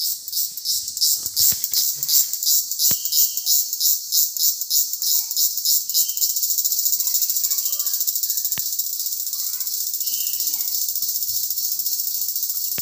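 Loud, high-pitched insect buzzing outdoors. It pulses about three times a second, then turns into a steady rapid trill about halfway through.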